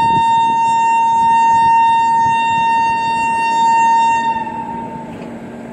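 Electric locomotive's horn sounding one long, loud, steady note, which sags in pitch and stops about four seconds in. A low hum and rumble from the departing train carry on beneath it.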